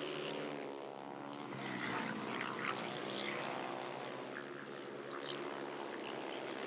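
Speedway motorcycles' single-cylinder engines racing around the track, their pitch rising and falling as the riders pass and pull away.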